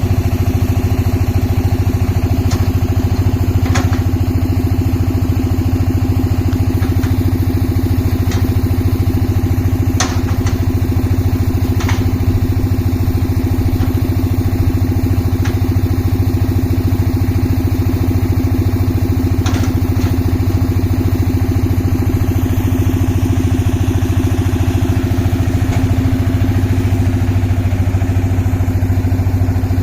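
Concrete mixer's engine running steadily and loudly, with a few short sharp knocks here and there.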